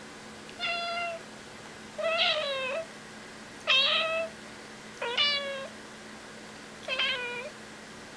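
Grey tabby cat meowing over and over: five loud meows, each about half a second long, about a second and a half apart.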